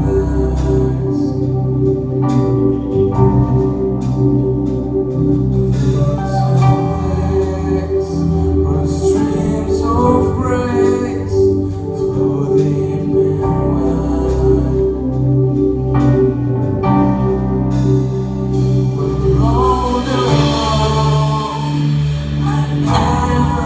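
Live worship band playing a slow song on keyboard, guitars and drums, with women's voices singing the melody over it at times.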